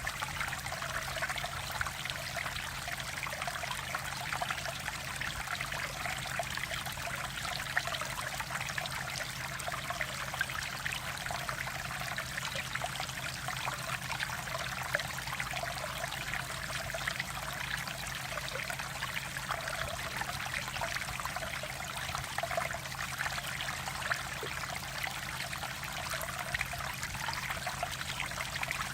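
Water of a mountain valley stream flowing, a steady, unbroken rush with fine splashing detail.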